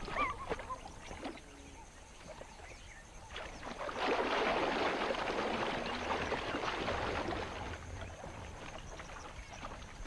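Nile crocodiles thrashing and splashing in shallow water as they tear and spin at a gazelle carcass. The splashing grows heavy about four seconds in, lasts a few seconds, then eases off.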